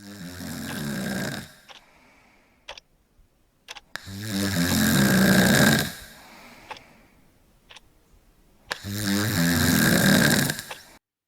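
Loud snoring: three long, rattling snores about four seconds apart, with a clock ticking faintly about once a second in the pauses between them.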